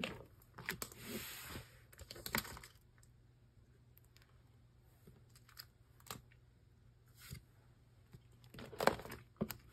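A 3-ring binder of plastic sleeve pages being opened and handled on a wooden table: a few sharp knocks and a rustle of the cover and pages at first, quiet with faint taps in the middle, then a louder burst of handling noise near the end.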